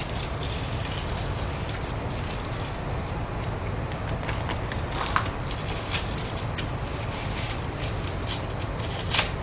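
Close-up eating: wet chewing and mouth clicks as a man chews food picked up with chopsticks, with a couple of sharper clicks at about five and nine seconds in, over a steady low room hum.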